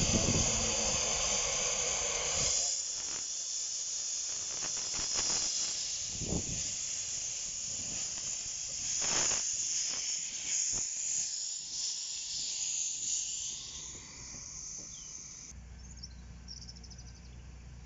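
Miniature 15-inch-gauge steam locomotive moving off slowly, its open cylinder drain cocks hissing steam: a loud steady hiss for the first two or three seconds, then a run of short puffs and hisses that fade out after about 14 seconds. A quieter outdoor background with a low rumble follows near the end.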